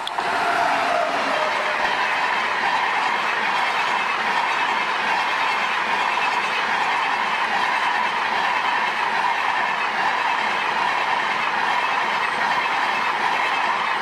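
Passenger train hauled by a WAP-7 electric locomotive passing close at speed, the locomotive then a long rake of coaches: a steady rush of steel wheels on the rails.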